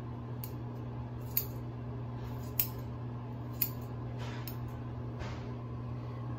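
Haircutting scissors snipping through wet hair: about five sharp snips, roughly a second apart, over a steady low hum.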